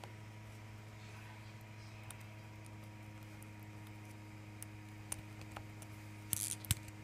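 Faint clicks and small snaps of 3D-printed plastic support material being broken out of a printed stove knob by hand, mostly near the end, over a steady low hum.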